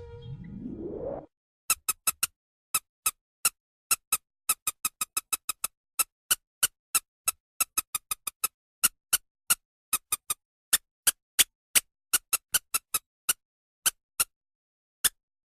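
Rat squeaking sound effect: dozens of short, sharp, high-pitched squeaks in an irregular run, roughly two to four a second, with brief pauses between. At the start a rising swoop tone ends about a second in, before the squeaks begin.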